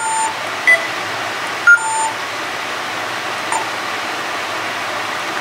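Pfaff Creative 4.5 sewing machine's touchscreen sounding its setting beeps while the button and alert sounds are chosen: a two-note falling beep, a short higher beep, then the two-note falling beep again, over a steady hiss.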